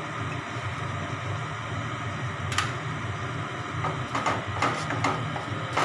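Onion-tomato masala frying in a non-stick pan with a steady hiss, with a sharp click partway through and a wooden spatula stirring and scraping the pan in short strokes near the end.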